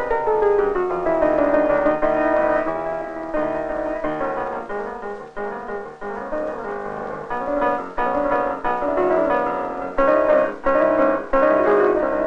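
Piano music, a continuous run of quickly changing notes.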